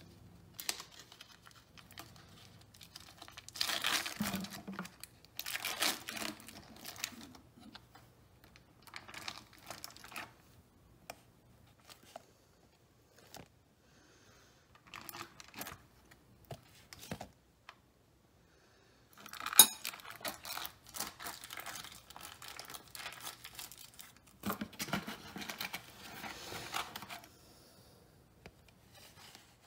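Foil wrapper of a block of cream cheese crinkling and rustling in short bouts while it is handled, with one sharp knock about twenty seconds in.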